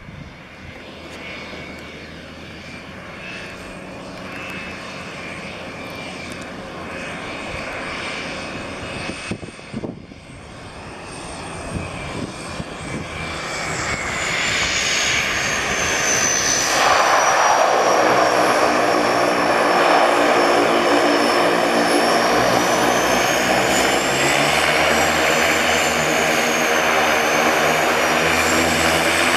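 Twin Pratt & Whitney Canada PT6A turboprop engines of a float-equipped de Havilland Canada DHC-6 Twin Otter on the water, faint at first and growing louder as the plane taxis closer, then loud and steady from a little past halfway, with a high turbine whine sliding up and down in pitch.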